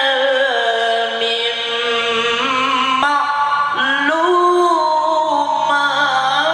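A male Quran reciter chanting in melodic tilawah style. He holds long, ornamented vowel notes with a wavering vibrato, shifting pitch a few times.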